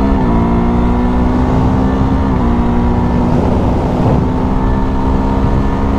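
Husqvarna Svartpilen 401's single-cylinder engine through a LeoVince LV-10 titanium exhaust, pulling hard up an on-ramp to highway speed. Its pitch climbs, drops at an upshift just after the start and again about two and a half seconds in, then holds fairly steady.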